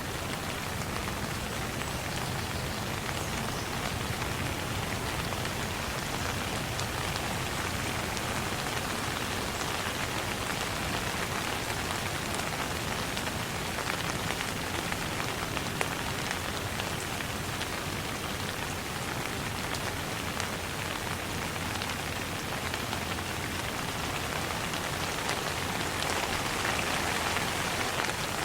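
Steady rain falling on a surface, a dense even hiss with many individual drops ticking through it.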